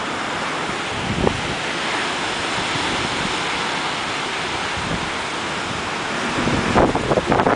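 Strong thunderstorm wind blowing steadily as a loud rushing hiss, with gusts buffeting the microphone in a cluster of rough thumps near the end.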